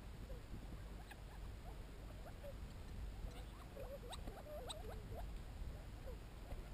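A flock of Gambel's quail feeding and giving soft, short contact calls, many low wavering notes overlapping one another, with a few sharp clicks about four and a half seconds in, over a low steady rumble.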